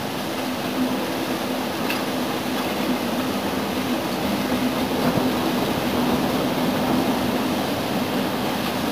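Class 37/9 diesel-electric locomotive 37901 'Mirrlees Pioneer' hauling coaches, its Mirrlees MB275T engine running with a steady drone that grows a little louder as it approaches, over the rush of a fast river.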